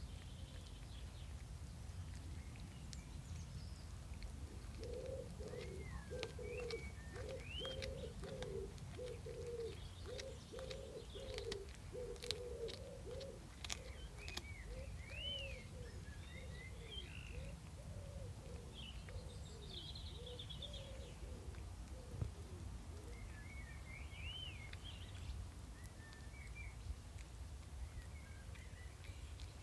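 A pigeon cooing in a long run of low, repeated coos that fade out about two-thirds of the way through, with small birds chirping higher above it.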